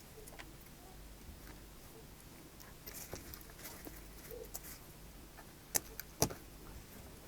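Faint, scattered clicks and light taps of small tools and plastic phone parts being handled while a headphone jack is fitted back into a smartphone frame, with two sharper clicks near the end.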